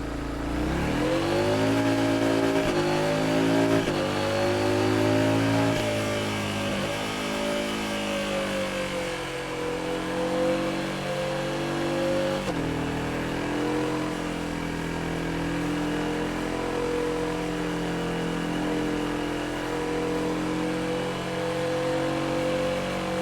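Yamaha XSR700's 689 cc parallel-twin engine under way: it rises sharply in pitch about a second in, dips briefly a couple of times as it climbs, then settles after a drop near the middle into a steady, even drone.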